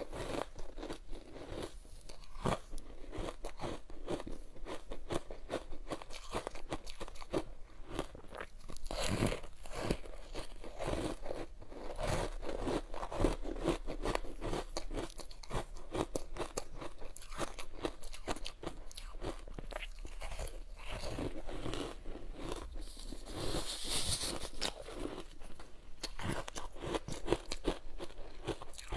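Biting and chewing frozen ice coated in matcha powder: a dense run of irregular crunches, with one brighter, hissing crunch late on.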